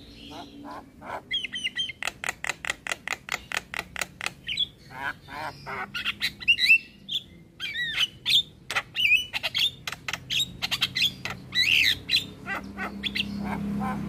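Javan myna singing: a quick run of sharp chips, about seven a second, then a varied string of whistles, squawks and rasping notes.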